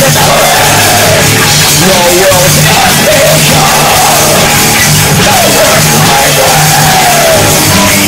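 Live punk-metal band playing loud, with the singer yelling into the microphone over the steady low drone of the guitars and bass.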